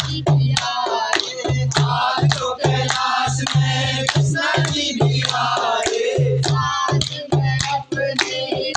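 A group of people singing a devotional bhajan together, with steady rhythmic hand clapping and a drum keeping the beat.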